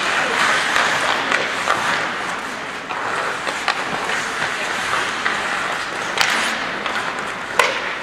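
Ice hockey play: skates scraping and carving on the ice, with several sharp clacks of sticks and puck, the loudest near the end.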